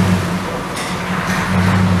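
2015 Nissan Titan's 5.6-litre V8 engine running with a steady low hum, dipping slightly in level mid-way and picking up again near the end.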